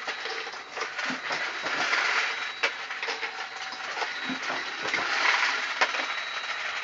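Continuous metallic clattering with irregular sharp clicks, from a Dillon 1050 progressive reloading press and its loose brass cases.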